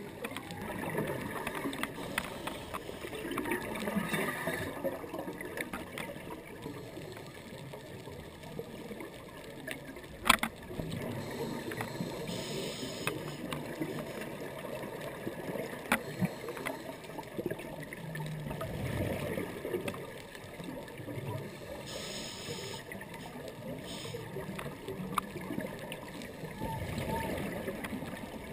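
Underwater sound from a scuba dive: rushing, gurgling bubbles of the diver's breathing, louder in bursts every several seconds. A few sharp clicks sound through it, the loudest about ten seconds in.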